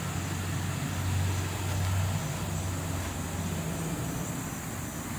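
A steady low mechanical hum, like a motor running, swelling slightly about a second in and easing off again, over a constant high hiss.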